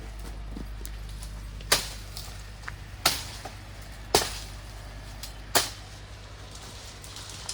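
Four sharp knocks about one to one and a half seconds apart, each dying away quickly, over a steady low rumble.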